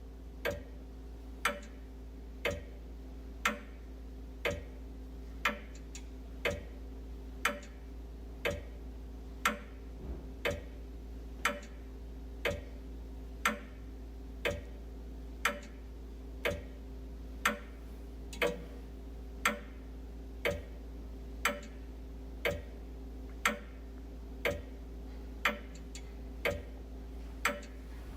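Wall clock ticking steadily, about one loud tick a second with fainter ticks between, over a steady low hum.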